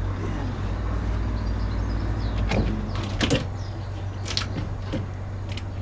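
A piece of OSB board being lifted out of a steel cradle frame, knocking and scraping against the metal several times, the loudest clatters around the middle, over a steady low rumble.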